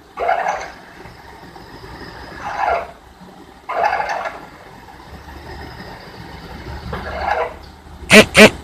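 A drill bit in a milling machine cutting into a metal block, the cutting noise coming in short swells every one to three seconds over the machine's steady low hum. Two sharp knocks, close together, near the end.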